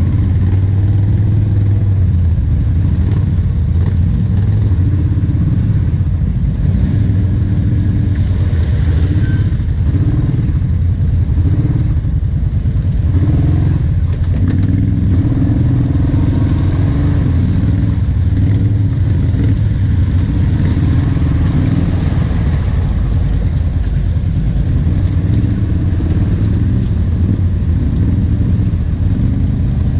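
Kawasaki KVF 750 Brute Force ATV's V-twin engine running at low speed, the revs rising and falling in short pushes of throttle as the quad crawls along a rutted mud trail.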